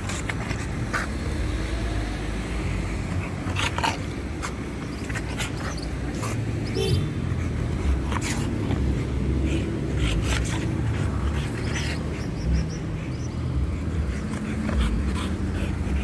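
An American bully dog rolling and squirming on its back in dry grass, with repeated short rustles and scrapes. A steady low rumble runs underneath.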